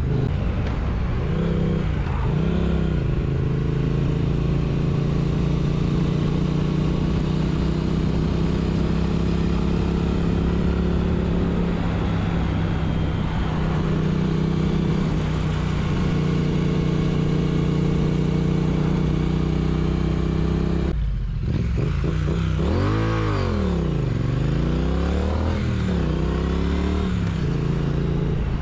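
Triumph Street Twin's 900 cc parallel-twin engine running at steady revs while cruising. About 21 seconds in, the throttle eases off and the engine note swings up and down a few times as the revs change.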